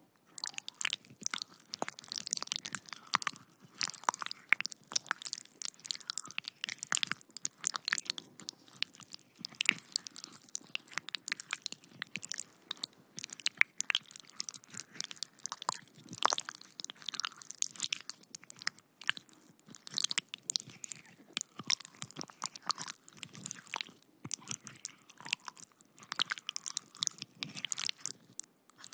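Gory foley sound effect of intestines being squeezed: continuous wet squelching with dense, irregular crackles and crunches.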